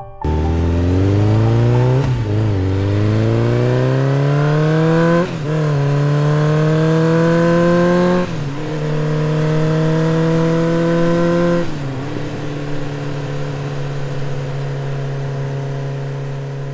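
Ducati Monster 696's air-cooled L-twin engine accelerating hard through the gears. The pitch climbs and drops back with each of four upshifts, then settles into a steady cruise.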